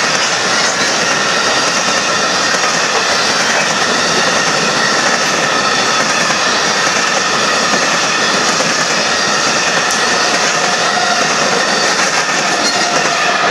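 Loaded Union Pacific coal train's gondola cars rolling past at close range: a steady rumble of steel wheels on rail with faint thin squealing tones from the wheels above it.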